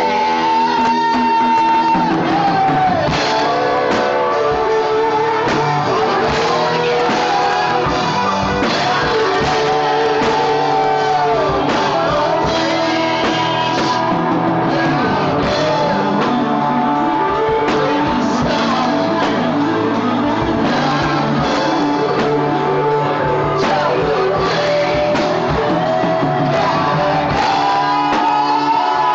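A live rock band playing in a room: a man sings held, sliding notes into a microphone over guitars and a drum kit.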